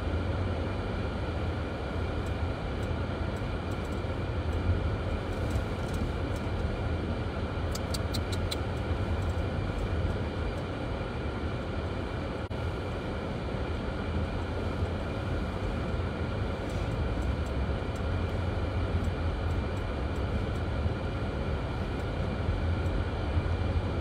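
Steady low rumble of a car's engine and tyres, heard inside the cabin while driving slowly on a snow-covered road. A brief run of faint high ticks comes about eight seconds in.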